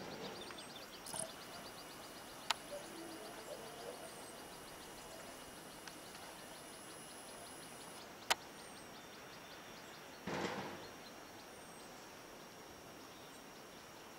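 Faint outdoor ambience with a rapid high ticking and a few brief distant bird chirps, broken by two sharp clicks and a short rustle about two-thirds of the way in.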